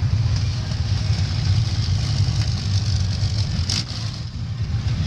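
Engines of vintage jalopy race cars running with a steady low rumble as the cars pass close by, with a brief sharp click about three and a half seconds in.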